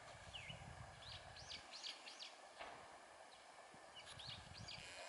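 Faint birdsong: runs of short, thin whistled notes, each rising and then falling, about a second in and again near the end, over a low rumble.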